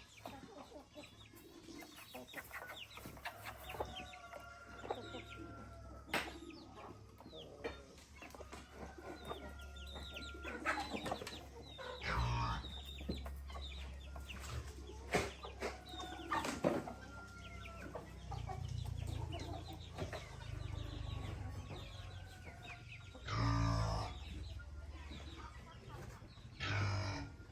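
Chickens clucking on and off, with scattered sharp knocks and a couple of louder thumps or scrapes near the end.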